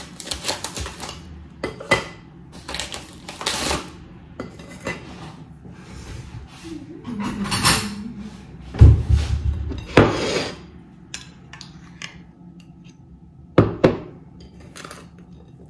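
Kitchen clatter of jam being spread on crispbread: a knife scraping and clinking against a ceramic plate and a glass jar of lingonberry jam, with scattered knocks and one heavy thump about nine seconds in.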